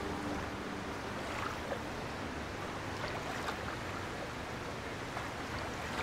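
Steady outdoor sea ambience: a continuous wash of water and wind, with a few faint ticks.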